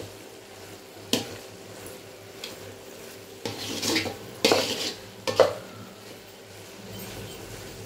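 A spatula stirring and scraping thick grated-carrot halwa around a wide aluminium kadai. There is one scrape about a second in, then a cluster of scrapes and knocks against the pan between about three and five and a half seconds.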